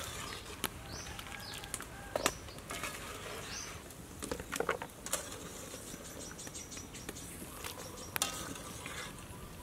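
Ladle and boiled octopus being lifted from a pot of turmeric broth into a plastic colander: scattered wet taps and clicks with a light patter of dripping. A few short high chirps sound in the first few seconds.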